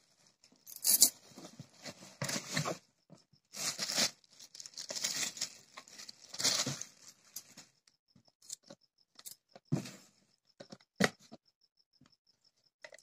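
Cardboard box and plastic bag rustling and crinkling in several bursts as a Milton insulated casserole (hotpot) is unpacked, followed by a few sharp knocks near the end as the plastic casserole and its lid are handled and set down.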